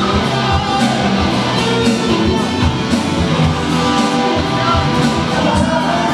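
Live rock band playing: electric and acoustic guitars over a steady drum-kit beat.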